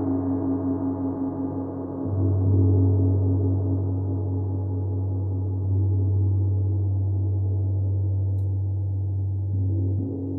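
Two large gongs played together with felt mallets, making a sustained, shimmering drone with a strong low hum. The sound swells about two seconds in and again around six seconds, then eases slightly near the end.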